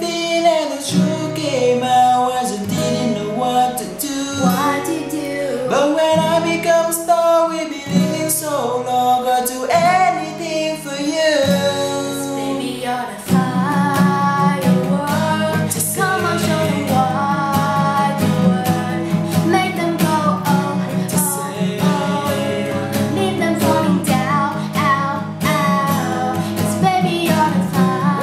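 Music: a voice singing a pop melody over strummed acoustic guitar. About halfway through, the guitar settles into a steadier, denser strum.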